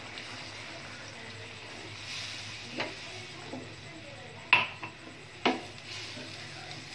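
A cooking utensil knocking against a stainless steel pan of chicken in a cream sauce as stirring begins: three sharp clinks, the loudest about four and a half seconds in, over a steady low hiss from the simmering pan.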